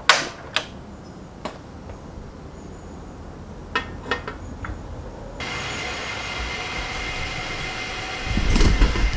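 Cadac two-burner portable gas stove being lit: a few sharp clicks as the burner is lit and a stainless steel kettle is set on the pan support, then the steady hiss of the gas flame under the kettle. Near the end a loud low rumble comes in.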